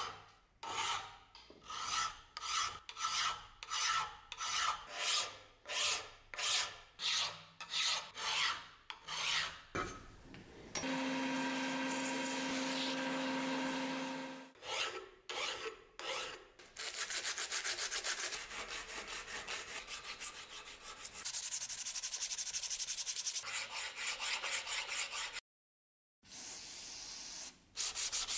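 Hand file rasping across the steel of a small anvil clamped in a vise, about two strokes a second. After a few seconds of steady pitched hum, sandpaper rubs quickly back and forth on the anvil's face in fast, even strokes.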